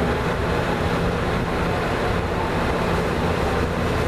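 Lasko Galaxy 3746 box fan running steadily on its low setting: a constant rush of moving air over a low motor hum.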